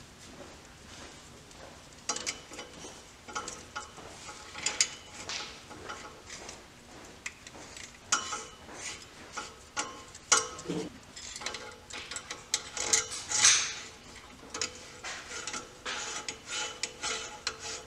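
Irregular light metal clicks, clinks and scrapes as the two halves of a new driveshaft center support bearing carrier are fitted together around the bearing and their bolts turned with a 5 mm Allen key.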